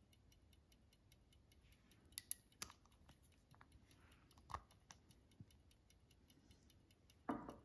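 Faint, steady ticking of a barograph's wind-up clockwork drum drive, several ticks a second, with a few soft clicks in between.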